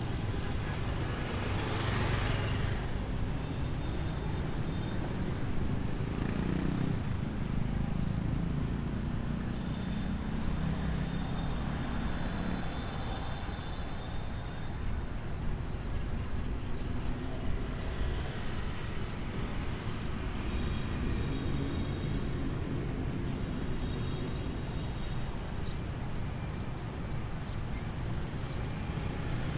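Street traffic of cars and motorbikes passing on the road beside the sidewalk: a steady engine and tyre rumble, with a louder vehicle passing about two seconds in, a stretch of engine drone in the middle and another pass-by near the end.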